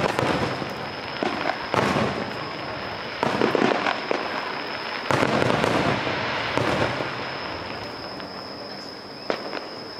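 Aerial firework shells bursting one after another: about five heavy booms, each dying away, with crackling between them.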